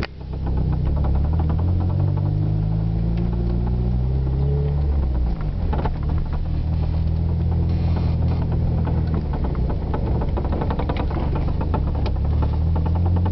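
A 1992 Eagle Talon TSi driving, its engine note rising over the first few seconds and then holding steady, with a knocking from the front of the car.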